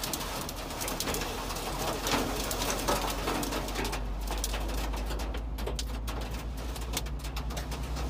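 Heavy storm rain beating on a vehicle's windshield in dense, irregular sharp ticks over a steady low engine and road drone, heard from inside the cab.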